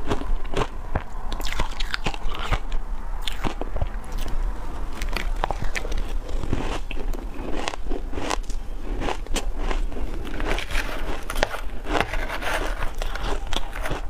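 Close-miked chewing of shaved ice, a dense, irregular run of crunches and crackles, with a metal spoon scraping and clinking through the ice in a glass bowl.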